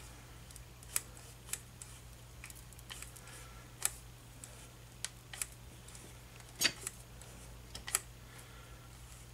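Lever-action grease gun being pumped into a grease zerk on a lathe's intermediate shaft: about a dozen scattered sharp clicks and clacks of the lever and coupler, the loudest about two-thirds through, over a faint steady low hum.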